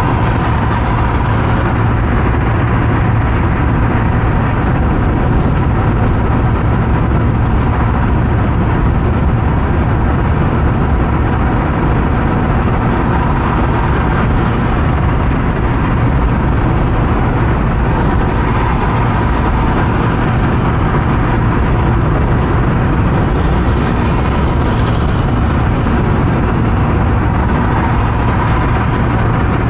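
A car driving on a highway: steady engine and road noise with a constant low hum.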